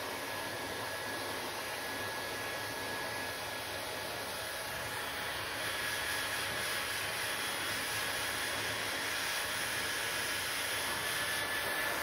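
Handheld hair dryer running steadily, a rush of blown air with a faint steady whine from its motor, growing slightly louder about halfway through.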